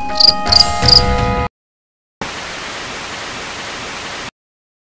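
Background music with held tones that stops suddenly about a second and a half in; after a short silence comes about two seconds of steady hissing static, a VHS-style transition effect, which cuts off abruptly.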